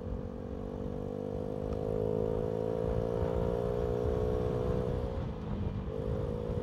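Motorcycle engine pulling away under acceleration, its note rising slowly and getting louder, with a brief dip about five seconds in before it picks up again. The bike's exhaust, by the rider's account, still needs fixing and is awaiting a new gasket.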